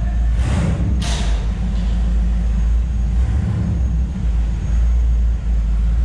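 Side-by-side UTV driving on a trail, a steady, heavy low rumble of engine and drivetrain.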